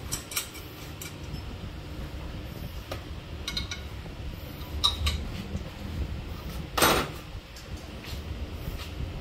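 Small metal clinks and clicks of diesel injector parts being handled on a steel workbench, over a low steady hum. One short rush of noise about seven seconds in is the loudest sound.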